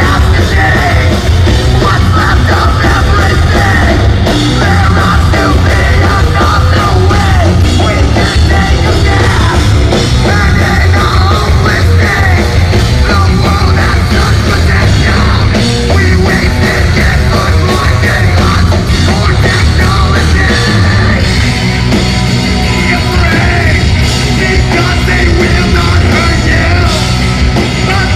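Heavy metal band playing live at full volume, with yelled vocals over the band.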